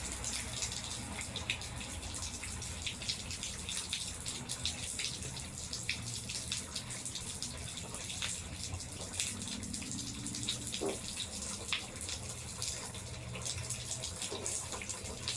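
Rain with water running and dripping off a gutter: a steady wash with many small drops tapping close by.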